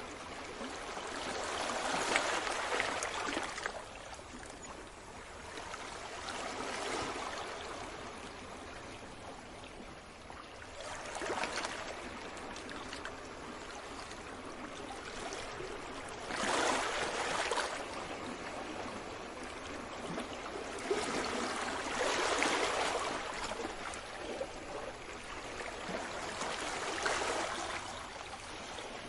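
Small sea waves washing in, each one a hissing surge that swells and fades, about every five seconds.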